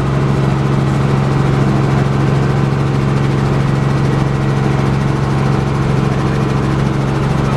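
Helicopter engine and rotors running steadily, heard from inside the cabin: a loud, even drone with a strong low hum.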